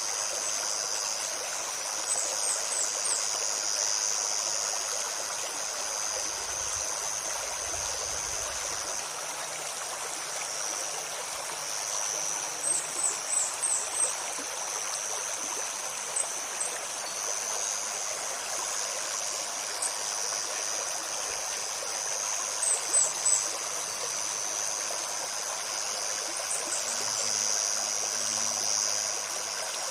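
A shallow river babbling steadily over stones. A high, steady insect buzz runs over it and drops out twice. Small songbirds give quick series of short high chirps several times.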